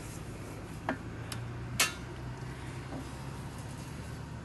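Low steady electrical hum from an RV campground power pedestal just switched on, with a few faint clicks. It sounds terrible, a sign that something is wrong with the site's power supply.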